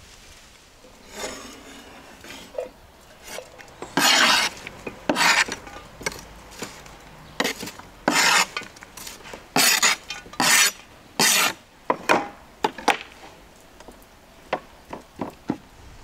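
Cooking utensils scraping and rubbing against a dish or pan in about a dozen short, irregular strokes, with a few lighter clicks near the end.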